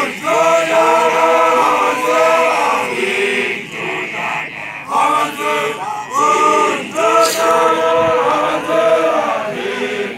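A group of male voices chanting a song together in unison, loud phrases of a few seconds separated by short breaks.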